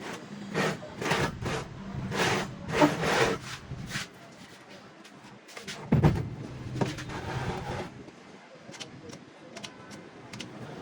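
Scraping and rubbing strokes in an uneven rhythm, with a knock about six seconds in.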